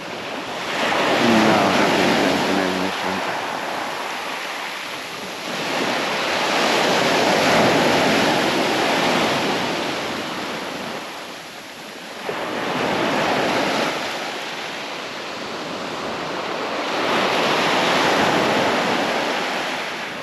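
Surf breaking on the beach in slow surges that swell and fade about every five seconds, with some wind on the microphone.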